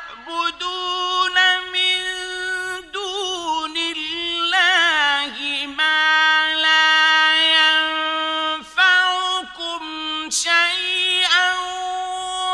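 A male qari reciting the Quran in the melodic mujawwad style: long, high held notes with wavering melismatic ornaments, the voice pausing briefly a few times between phrases.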